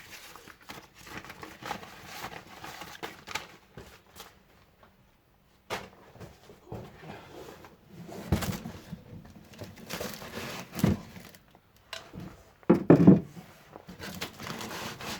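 Parts and their packaging being handled and moved about in boxes: rustling with scattered knocks and thuds, the loudest of them near the end.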